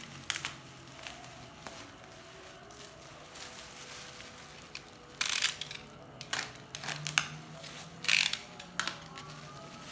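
Packaging being handled: crinkling and rustling in short, irregular bursts, the loudest about five seconds in and again around eight seconds.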